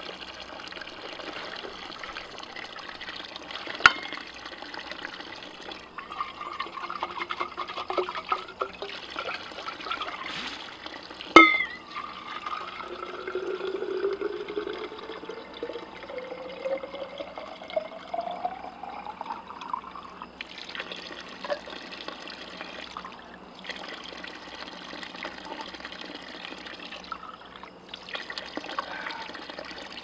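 Spring water pouring from a pipe outlet into a water bottle, the tone of the filling bottle rising slowly in pitch for several seconds. After that the water trickles on steadily. Two sharp knocks of the bottle come early on and about eleven seconds in, the second the loudest sound.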